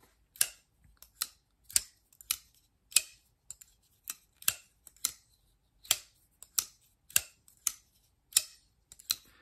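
Kizer Dogfish button-lock folding knife with an aluminum handle, worked open and shut over and over: a string of sharp metallic snaps and clicks, roughly two a second, as the blade fires out and locks and is dropped closed again. The aluminum handle dulls the snap a little.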